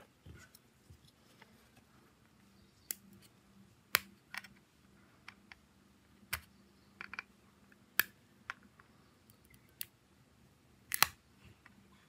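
Irregular sharp clicks and taps of small hard parts and hand tools being handled at a workbench during a phone teardown, about a dozen in all, with a loud double click near the end.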